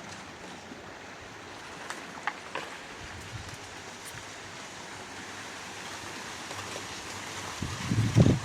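Steady rustle of wind moving through banana leaves and trees, with a few faint crackles a couple of seconds in. Near the end, a brief low buffeting of wind on the microphone.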